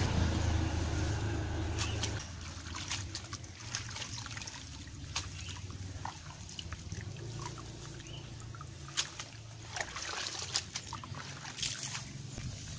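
Water trickling and sloshing in a basin as freshly dug ginger rhizomes are washed by hand, with scattered short knocks and splashes. A low steady rumble runs under it for the first two seconds.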